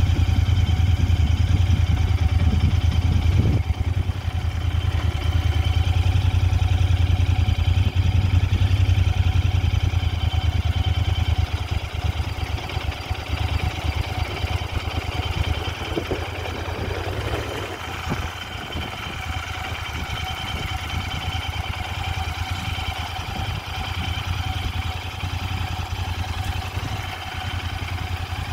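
Royal Enfield Interceptor 650's parallel-twin engine running at low revs as the motorcycle is ridden slowly. It runs louder at first, then gets quieter and steadier after about eleven seconds.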